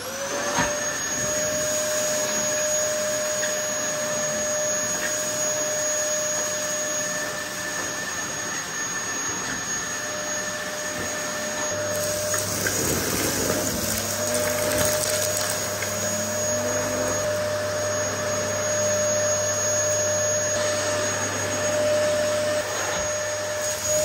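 Dyson DC08 cylinder vacuum cleaner switched on and running with a steady high motor whine and rush of air, its turbo brush head sucking up dirt and fluff from carpet. About halfway through, the whine briefly wavers in pitch.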